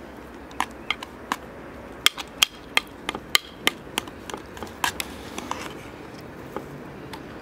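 Metal spoon clinking against an enamel basin while stirring a thick white filling: an irregular run of sharp clicks, densest between about two and four seconds in, thinning out toward the end.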